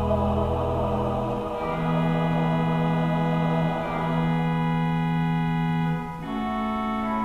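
Church organ holding slow sustained chords, moving to a new chord about a second and a half in and again near the end.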